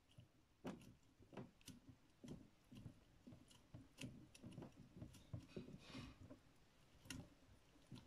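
LG WD-14370FD front-loading washing machine in demo mode, its drum turning slowly in the distribute phase before a spin. Faint, irregular soft knocks and clicks, two or three a second.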